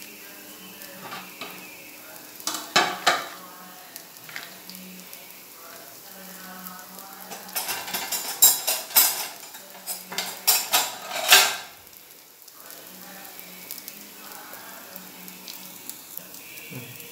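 Dosa batter sizzling on a hot non-stick tawa, with a knob of butter melting on it as the dosa crisps. Loud rasping strokes break in about three seconds in and again in a longer run from about eight to eleven seconds.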